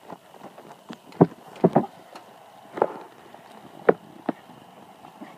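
A handful of short, sharp knocks at uneven intervals, about six in all, the strongest a little over a second in, over a low steady background.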